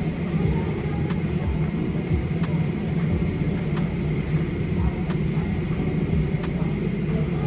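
Steady low rumble of a car being driven, heard from inside the cabin, with scattered faint ticks.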